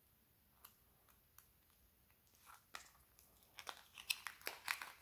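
Thin clear plastic lure packaging crinkling and tearing as it is pulled open by hand: a few faint clicks at first, then a quick run of sharp crackles in the second half.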